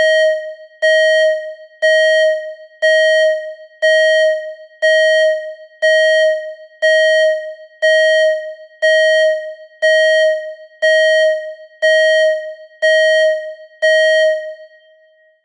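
Electronic alarm tone: a single steady-pitched, buzzy beep repeated about once a second, each one starting sharply and fading away, about fifteen times before it stops.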